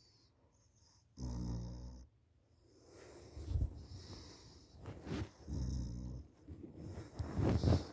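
A sleeping person snoring: a short, pitched snore about a second in, then about four rougher, lower snores in uneven succession, the loudest near the end.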